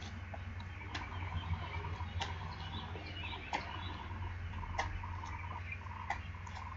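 Sneakers tapping on a concrete sidewalk, one sharp tap about every second and a quarter, as the feet hop in and out from a plank. Birds chirp faintly in the background.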